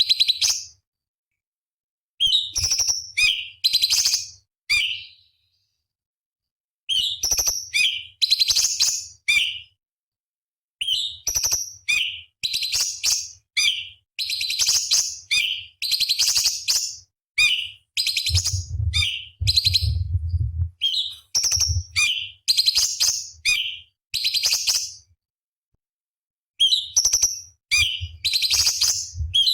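Orange-bellied leafbird (cucak cungkok) singing rapid runs of sharp, high chattering notes, in phrases a few seconds long broken by abrupt silent gaps. A faint low hum lies under the song and is strongest about two-thirds of the way through.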